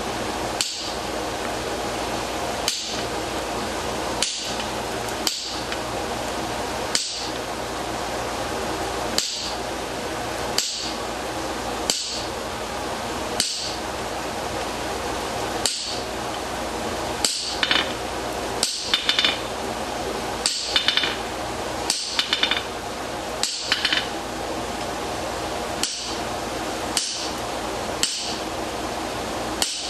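Hammer strikes on the hot steel toe of a horseshoe, scoring X's into it to pop off the scale and leave a clean surface for flux before a jump weld. The strikes are sharp and ringing, about one a second, with quick runs of two to four blows in the middle, over a steady background hum.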